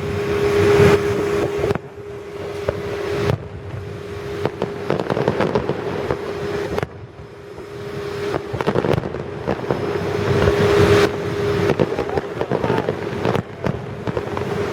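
Fireworks going off: a dense run of pops, cracks and crackling bursts, with a steady hum underneath. The sound breaks off abruptly several times.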